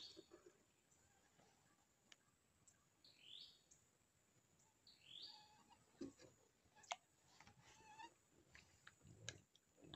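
Near silence, broken by a few faint short chirps that sweep upward, like bird calls, and several soft clicks and knocks in the second half from hands working a bamboo fishing pole and its line against the boat.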